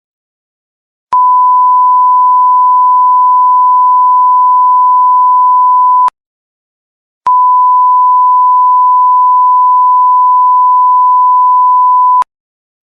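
Two long, steady electronic beeps, each a single high-pitched pure tone lasting about five seconds. There is a silent gap of about a second between them, and each starts and stops abruptly with a faint click.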